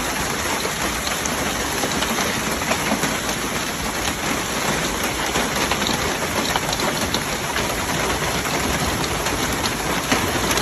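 Heavy rain pelting down hard: a dense, steady hiss full of many small sharp hits on a surface.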